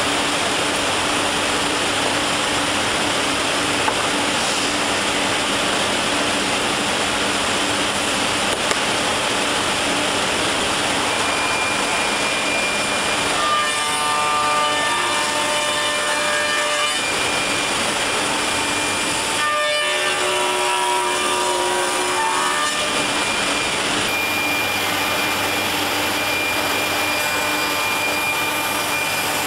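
CNC router machining a solid timber blank, its spindle and cutter running steadily through the wood. Twice the sound changes for a few seconds, with several steady whining tones coming through the cutting noise.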